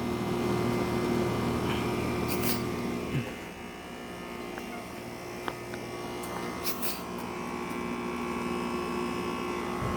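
Heil Quiet Comfort outdoor air-conditioner unit running steadily: the compressor hums and the condenser fan spins, and it is a quiet unit. The low part of the hum drops a little about three seconds in, and there are a few faint clicks.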